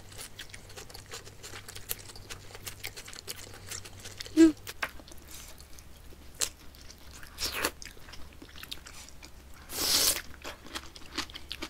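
Close-miked eating: steady chewing and crunching of stir-fried pork and raw green onions, with many small wet clicks and one sharp loud click about four seconds in. Near the end comes a long slurp of soup from a spoon.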